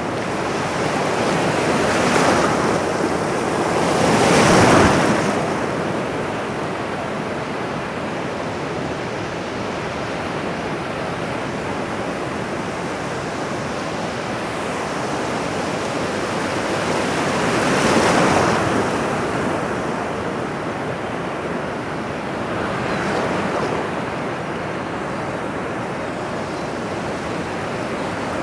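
Ocean surf: a steady rush of water with waves swelling and breaking, the loudest about four seconds in, another near eighteen seconds, and smaller ones around two and twenty-three seconds.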